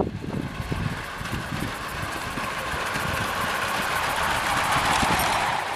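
A 5-inch gauge 0-4-0 miniature steam tank locomotive running past close by: a rushing steam hiss over a low rumble that grows louder as it nears and drops away suddenly near the end.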